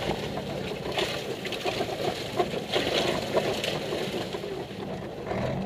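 Car engine running with knocks and rattles from the cabin as the car bumps down a rough dirt track, heard from inside the car.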